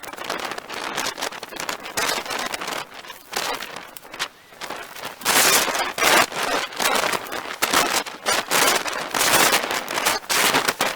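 A cut willow limb being dragged through brush and leaf litter, its twigs and branches crackling, snapping and scraping in a run of irregular noisy bursts that grow louder about halfway through.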